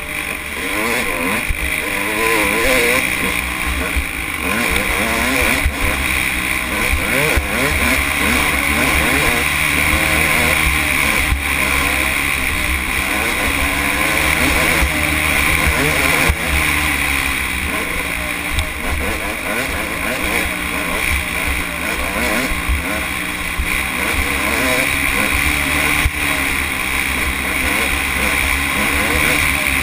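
Dirt bike engine running hard, its pitch rising and falling constantly as the throttle is worked and gears change, over a steady hiss.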